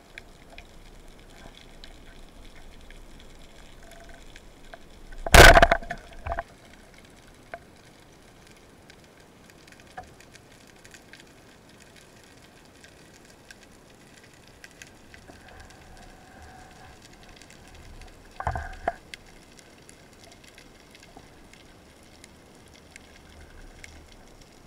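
Underwater ambience: a low steady background with scattered faint clicks and faint steady tones, broken by a loud burst about five and a half seconds in and a smaller one near eighteen and a half seconds.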